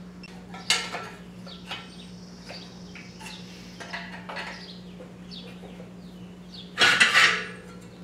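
Metal tools clinking and knocking against a bare VW Type 1 engine case as its case halves are worked apart: scattered light knocks, with a louder, longer clatter about seven seconds in.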